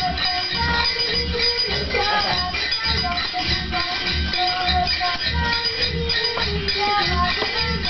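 Folk Christmas carol music played live by a children's group, an instrumental passage: a melody on string instruments over a steady low beat, with shaken, jingling percussion.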